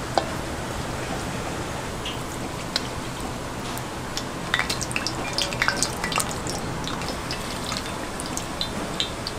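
Cooking oil poured onto a flat iron griddle, hissing with scattered sharp pops and crackles that come thickest about halfway through.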